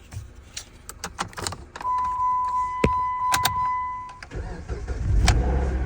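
A few clicks, then a steady electronic beep for about two and a half seconds, then the 2014 Jeep Patriot's engine cranking and catching, its low running rumble building near the end.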